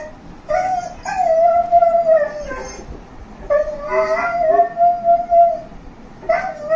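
Labrador retriever howling in long, drawn-out howls, each held for a second or two, with the pitch dropping at the end. Three howls, with a fourth starting near the end.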